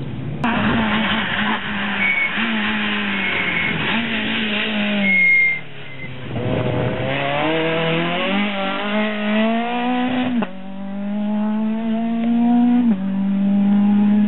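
Rally car's engine at full throttle as it comes past, its revs climbing through the gears and dropping sharply at each upshift, about ten and thirteen seconds in. A brief high tyre squeal in the first few seconds.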